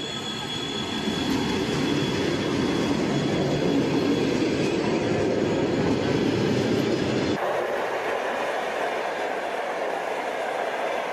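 Electric commuter trains passing close by at speed, the steady rush and rumble of wheels on the rails. About seven seconds in the sound changes abruptly to a second passing train, lighter and without the deep rumble.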